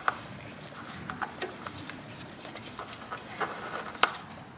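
Scattered light clicks, taps and rustles of hands handling parts of a small tractor engine and its shroud, with one sharper click about four seconds in.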